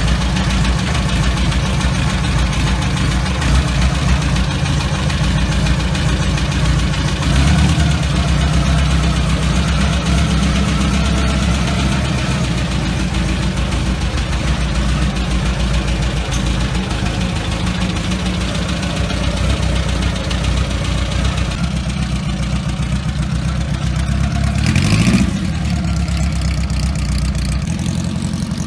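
Ariel Square Four's four-cylinder square-four engine idling steadily. The revs lift briefly about seven seconds in and climb again about 25 seconds in as the motorcycle pulls away.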